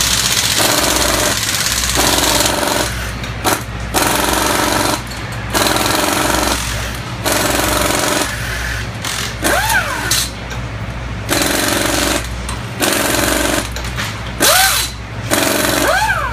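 Pneumatic impact wrenches rattling in repeated bursts of a second or so, stopping and starting, as bolts are run out of a Top Fuel dragster engine during teardown.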